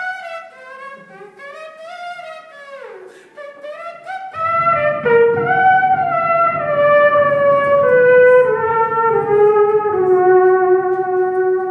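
Beatboxer imitating a trumpet with his voice through a microphone and PA speaker. Quiet sliding notes come first; from about four seconds in there is a loud, held horn-like melody stepping slowly downward over a low bass.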